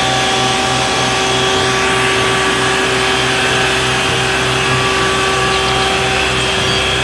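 Isuzu water tanker truck's engine running its pump while the roof-mounted water cannon sprays a high jet: a loud, steady mechanical drone with a hiss of rushing water and an even low pulse underneath.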